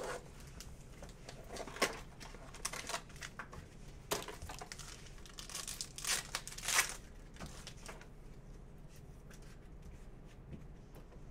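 A trading-card box and the card pack inside being torn open by hand, with the wrapper ripping and crinkling in irregular rustles. The loudest rips come about four seconds and six to seven seconds in.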